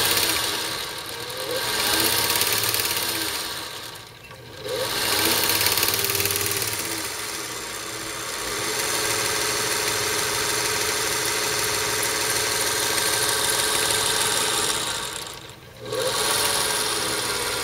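A 1947 Singer 201-2 sewing machine runs without fabric, driven by its gear-driven direct-drive "potted" motor with a smooth, purring hum. Its speed rises and falls, and it slows almost to a stop about four seconds in and again near the end before spinning back up.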